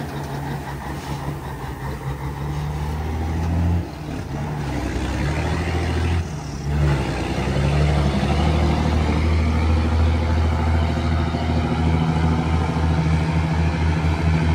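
Heavy dump truck's diesel engine pulling away uphill under load, a steady low drone that dips briefly about four seconds in and again about six seconds in.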